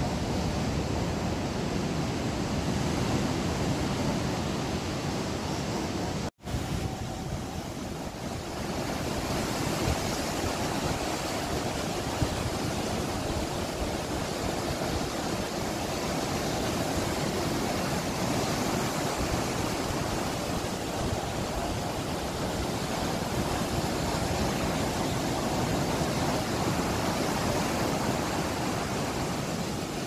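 Sea waves breaking and washing over rocks in a steady rush of surf. The sound cuts out for an instant about six seconds in.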